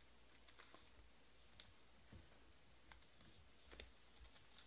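Near silence, with about six faint, scattered clicks and taps from trading cards and a foil pack being handled on a table.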